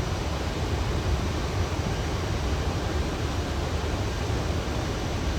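Steady rushing airflow noise on a Boeing 737 flight deck in flight: a low rumble with an even hiss above it, unchanging throughout.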